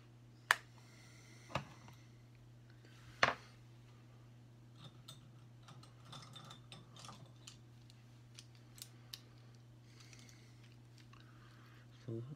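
Makeup containers and brushes being handled: three sharp clicks in the first few seconds, then a string of lighter ticks and rustles, and a soft bump near the end, over a steady low hum.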